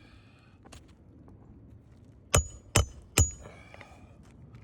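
Three quick hammer blows, about 0.4 s apart, driving a roofing nail into an asphalt shingle, each with a short metallic ring.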